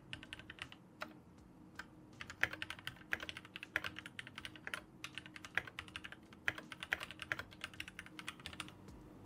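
Typing on a Keychron Q1 V2 aluminium-cased mechanical keyboard with Gateron G Pro Brown tactile switches: a few single keystrokes, then quick runs of key clicks broken by short pauses.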